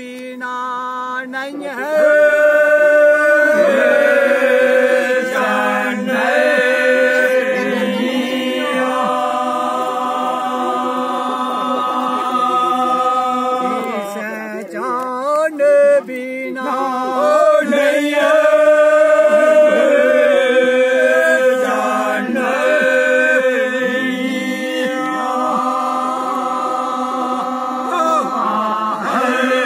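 Group of men singing a Dogri bhakh unaccompanied, a long-drawn folk chant: several voices hold a steady drone while a melody rises and falls above it in long sustained notes, with a brief break about halfway through.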